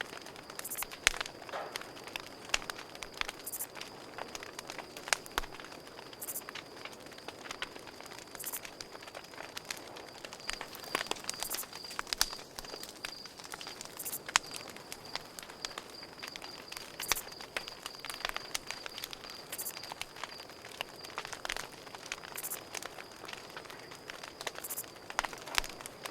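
Campfire crackling, with frequent irregular pops and snaps from the burning wood. A cricket chirps steadily in the background as a continuous, fast-pulsing high tone.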